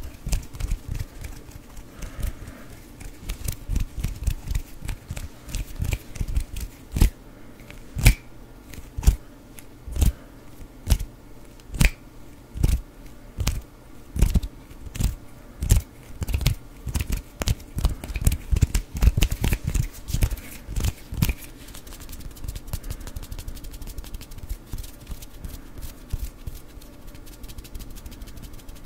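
ASMR hand sounds made close to a foam-covered microphone: a run of sharp finger clicks and snaps, about one or two a second, giving way near the end to quicker, softer crackling.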